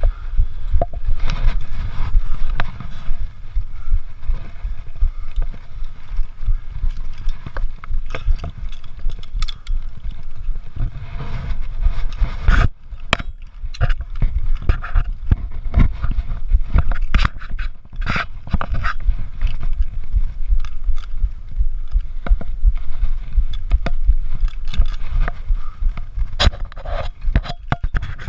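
Clothing rubbing and scraping against a body-worn GoPro as the wearer moves, with a low rumble and frequent sharp clicks and knocks.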